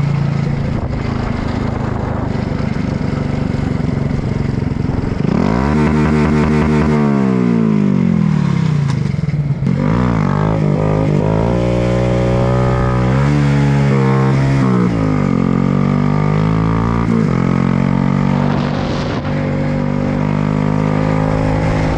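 Motorcycle engine under way on the road, its pitch climbing and falling several times as the bike speeds up, shifts and slows, then holding steady at a cruise for the last several seconds.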